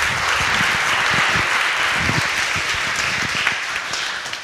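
Audience applauding, a dense steady clapping that fades near the end, with low thumps and rustles of a clip-on lapel microphone being taken off.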